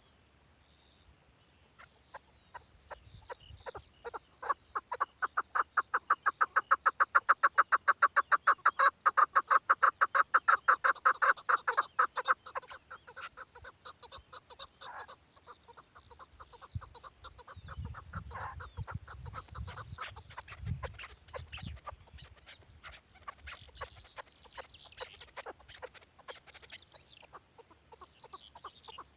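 Chukar partridge calling: a long run of rapid clucking notes, about five a second, that swells to its loudest after a few seconds and then breaks up into scattered notes. Some low thumps come in past the middle.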